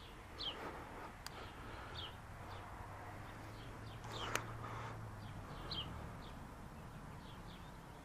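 A bird calling in the background with short, falling chirps repeated every second or two. A sharp click sounds about a second in, and a louder one about four seconds in.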